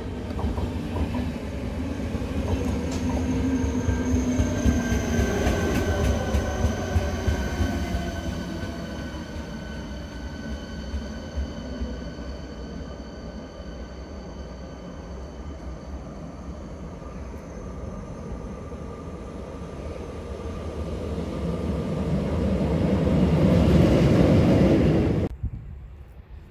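ČD class 471 CityElefant double-deck electric multiple unit running past: steady whining tones from its electric traction equipment over the rumble of wheels on rail. It is loudest about 5 seconds in and again near the end, then cuts off suddenly shortly before the end.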